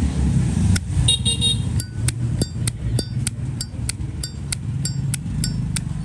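Zippo lighter's hinged metal lid flicked repeatedly, a run of sharp metallic clicks, each with a short ring, about three a second.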